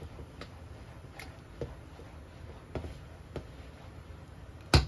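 Silicone spatula stirring sauce in a stainless steel saucepan, with faint scattered ticks against the pot. Near the end comes a loud, sharp knock.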